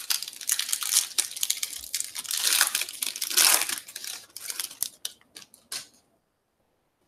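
Foil wrapper of a Topps Finest baseball card pack crinkling and tearing as it is handled and ripped open, loudest a little past halfway, ending with a few short crackles about six seconds in.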